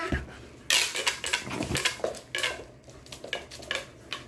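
A five-month-old retriever puppy's claws clicking and scrabbling on a laminate floor as it scrambles about: a quick flurry of clicks about a second in, then scattered single clicks.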